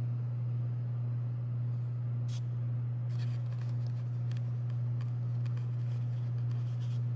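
Motorized display turntable running: a steady low hum, with a few faint light clicks from about two seconds in.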